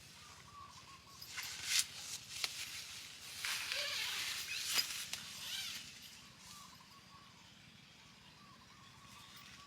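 Rustling and crackling with a few sharp clicks for several seconds, then a faint warbling call repeated over and over in the background.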